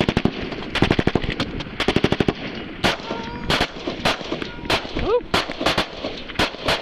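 Rifle fire: rapid strings of shots, several a second, in about the first two and a half seconds, then single shots at irregular intervals.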